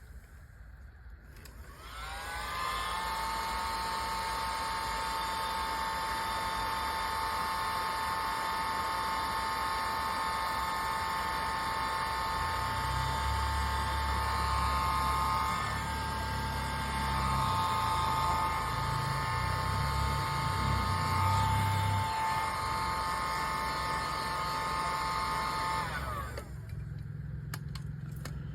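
Electric heat gun running to shrink heat-shrink sleeves over soldered wire joints: its fan whine rises as it spins up about two seconds in, holds steady, and winds down a couple of seconds before the end.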